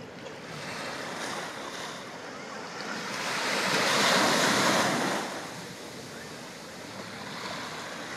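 Small waves washing onto the shore, one wave breaking louder about halfway through, with some wind on the microphone.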